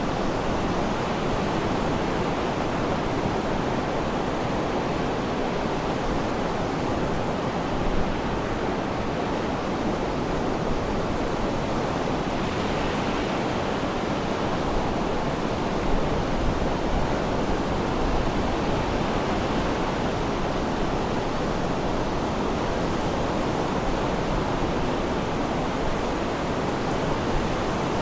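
Sea surf: a steady rushing wash of waves, with no single wave break standing out.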